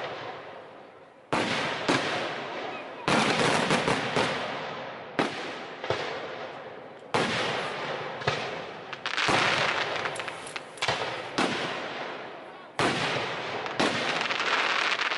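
Aerial firework shells bursting: a dozen or so sharp bangs, irregularly spaced, each fading slowly in a long echoing tail.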